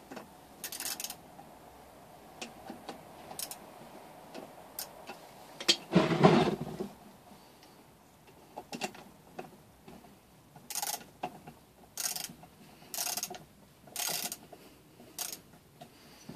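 Metal hand tools and parts of a 3 hp small engine clicking and clinking as a part is taken off by hand. There is a louder clatter about six seconds in, then a run of short sharp sounds about once a second near the end.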